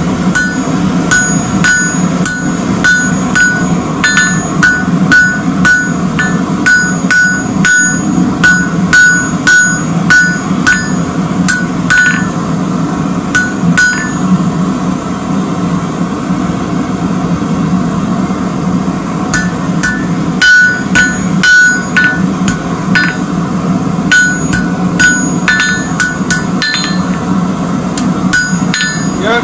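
Blacksmith's hammer striking hot rebar on an anvil to forge a spike, each blow ringing off the anvil. The strikes come about two a second, stop for about five seconds midway, then start again.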